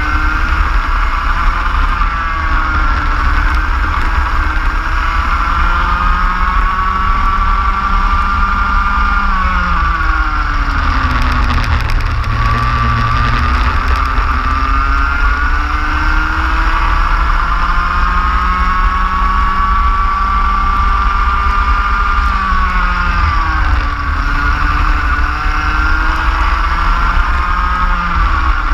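Go-kart engine at racing speed, heard onboard. Its pitch climbs slowly along the straights and drops sharply as the kart slows for corners: about ten seconds in, again around twenty-three seconds, and once more near the end. A steady low rumble runs underneath.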